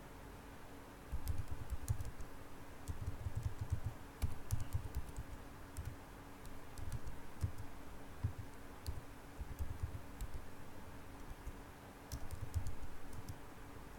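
Computer keyboard typing in several short runs of key clicks with pauses between, over a faint steady hum.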